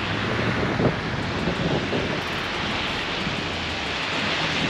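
Pickup plow truck driving and pushing heavy wet slush with its front plow blade: a steady rushing noise over a low engine hum, with occasional small knocks.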